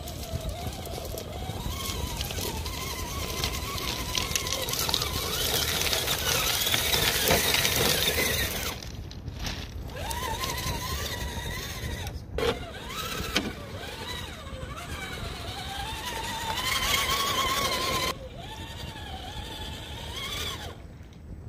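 FTX Hi-Rock 1/10-scale RC crawler's electric motor and gears whining, the pitch rising and falling with the throttle, over a rough crunching of loose stones under the tyres. The sound breaks off abruptly a few times and picks up again.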